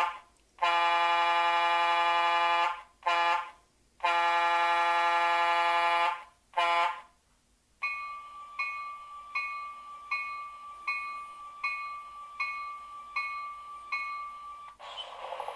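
Electronic sound system of an American Models S gauge PRR GG1 model locomotive sounding its horn in a series of blasts, two long and the rest short. Then its bell rings steadily, about one strike every three-quarters of a second, and a steady buzzing hum starts near the end.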